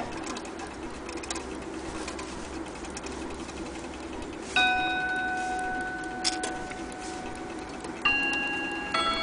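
Elliott mantel clock ticking, then its chime rods strike: one ringing note about halfway through, then two more close together near the end, each note ringing on.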